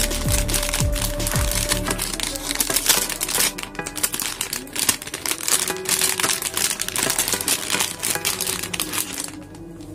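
Plastic packaging and a silver anti-static bag crinkling and crackling as they are handled and pulled open around a laptop battery, over background music; the crinkling dies away near the end.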